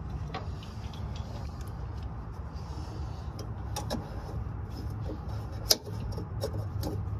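Scattered small clicks and knocks of hand-work on hoses and fittings in a mini excavator's hydraulic compartment, with one sharp click about three-quarters of the way through, over a steady low rumble.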